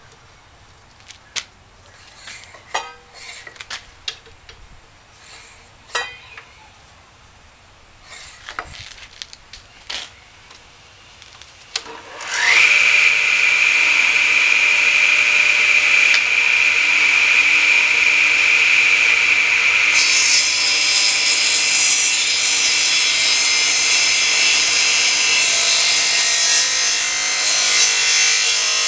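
A few clicks and knocks of wood being handled. About twelve seconds in, a table saw's motor switches on and winds up to a steady high whine. About eight seconds later the blade starts a rip cut along a pine 2x4, adding the noise of wood being sawn over the whine.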